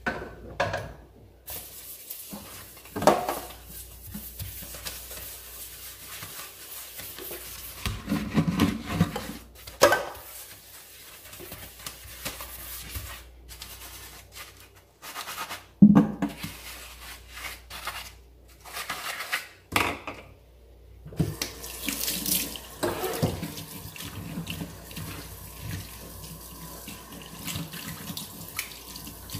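Kitchen tap running into a sink during hand dishwashing, with irregular knocks and clatter from dishes being handled; the loudest knocks come about three seconds in and about sixteen seconds in.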